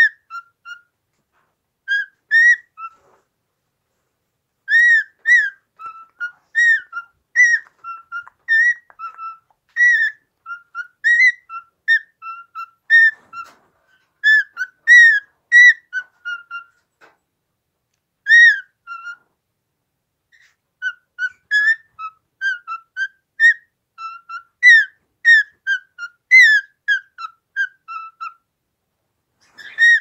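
Cockatiel whistling a song: long runs of short, rising-and-falling whistled notes, broken by brief pauses about three seconds in and again near twenty seconds.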